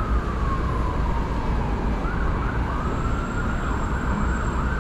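Emergency-vehicle siren in a slow wail, its pitch sliding down, that switches about halfway through to quicker up-and-down sweeps. Steady city traffic rumbles underneath.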